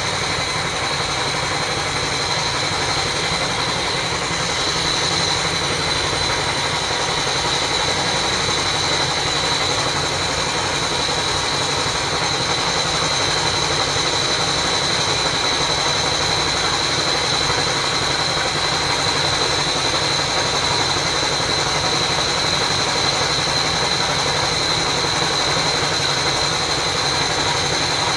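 Water pump motor running steadily, with a constant high whine over it.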